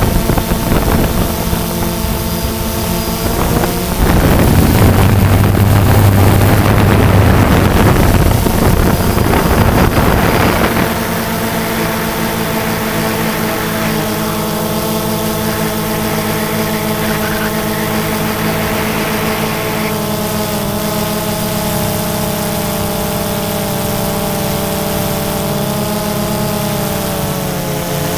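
Multirotor drone's motors and propellers whining in several steady tones, the pitch shifting as it manoeuvres, loudest near the end. Wind gusts over the microphone from about 4 to 10 seconds in.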